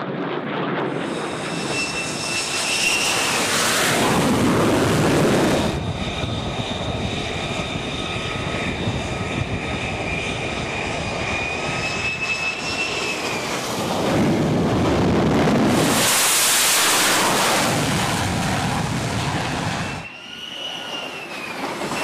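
F-35 Lightning II jets' Pratt & Whitney F135 turbofan engines, heard across several spliced clips: a steady rushing jet noise with a high, slightly gliding turbine whine, swelling louder about four seconds in and again about fourteen seconds in, with abrupt changes where the clips are cut together.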